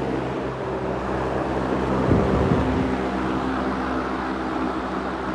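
Fasco Arctic Aire Model 200 two-speed box fan running on low speed: a steady rush of air over the motor's hum, very loud for its low setting.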